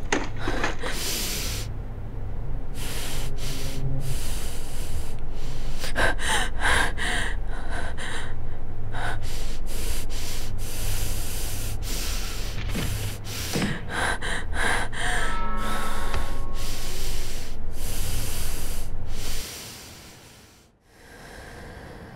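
A frightened young woman breathing hard, breath after breath in loud, noisy bursts, over a steady low hum. The breathing stops abruptly near the end, leaving one faint breath.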